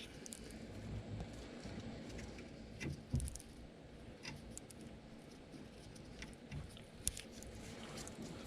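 Scattered light clicks and taps of hand tools working the rear brake caliper's slide pin bolt loose, with a duller knock about 3 seconds in and a sharp click about 7 seconds in.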